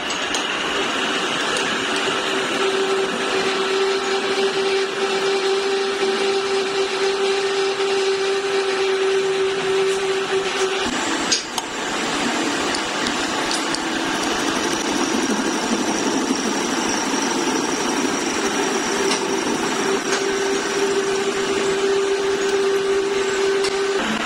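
Metal lathe running and cutting steel on a heavy truck kingpin: a steady machining noise with a held tone from the cut. The tone drops out about eleven seconds in with a short knock, then returns near the end.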